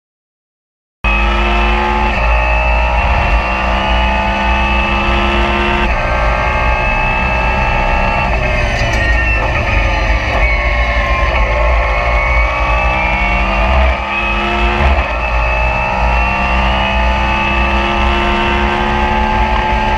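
Lamborghini Huracán Super Trofeo race car's V10 engine at racing speed, heard from inside the cockpit. It cuts in abruptly about a second in, and its pitch jumps at gear changes a few times and falls away for a stretch in the middle.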